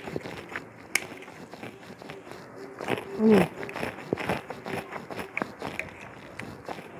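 Close-up eating sounds: chewing and crisp crunching with scattered sharp clicks, and a metal spoon scraping and tapping on the plate. About three seconds in there is a short hummed 'mm' that falls in pitch.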